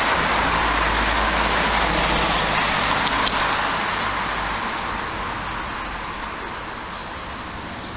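Road traffic noise: a car's tyre and engine hiss that fades steadily away over the second half, with a sharp click about three seconds in.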